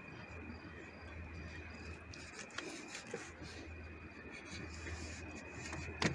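Faint handling noises as a small fish is taken out of a landing net: the mesh rubbing, a couple of soft clicks, and one sharp knock at the very end. A low steady background with a thin high tone runs underneath.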